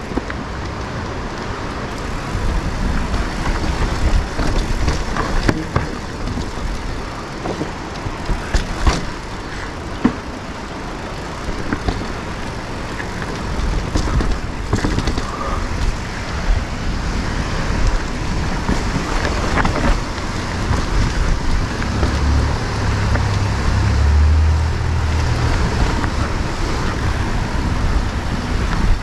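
Mountain bike being ridden along a trail: tyres rolling over dirt, wind rumbling on the microphone, and scattered clicks and rattles from the bike over bumps. The low rumble grows heavier for a few seconds about three quarters of the way through.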